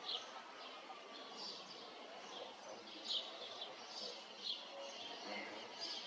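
Small birds chirping: short, high chirps repeating irregularly, about one or two a second, the loudest about three seconds in, over a steady outdoor background hiss.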